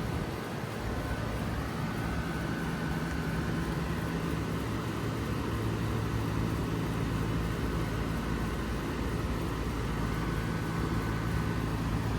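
2020 Lennox Merit series 5-ton heat pump outdoor unit running steadily, its compressor humming under the rush of the condenser fan, with a faint steady higher tone over it.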